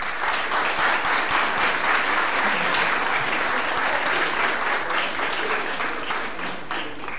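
Audience applauding: many people clapping, starting suddenly and fading out near the end.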